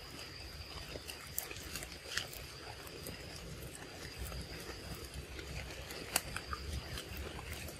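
A young macaque eating a ripe mango close up, with wet smacking, slurping and chewing clicks as it bites into the fruit. A sharper click comes about six seconds in. Behind it runs a steady high-pitched insect drone from the forest.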